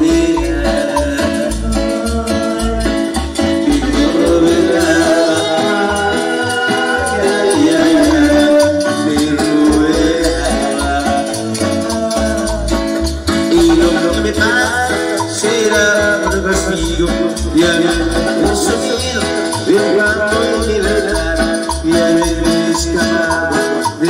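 Instrumental dance music from a live band playing through loudspeakers: held keyboard melody lines over a steady bass beat.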